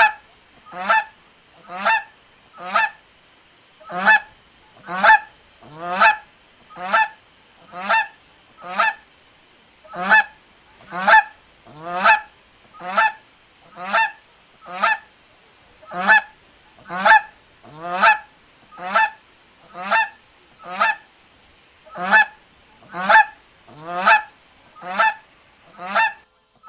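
Goose honking over and over, short single honks at about one a second with a few brief pauses.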